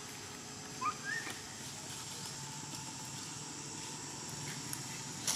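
Outdoor ambience with a steady high hum, broken by two short rising chirps about a second in.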